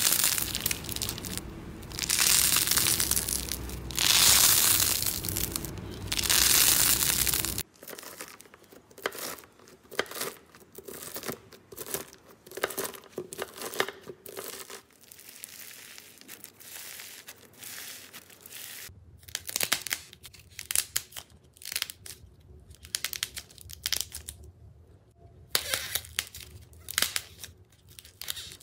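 Slime being squished and worked close to the microphone. About four loud hissing swells come first, then, after a sudden change, a long run of sharp crackles and pops.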